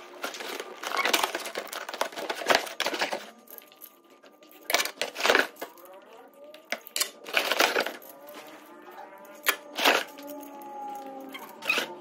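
Cardboard box being torn open, flaps and packing tape ripping and rustling, then clear acrylic clothes hangers clacking and clinking against each other in sharp separate knocks as bundles of them are lifted and handled.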